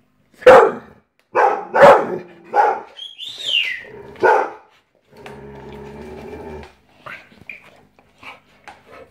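Dog barking indoors: a run of loud, sharp barks over the first four and a half seconds, with a high falling squeal among them, then a steady drawn-out sound for about a second and a half and a few quieter short yips near the end.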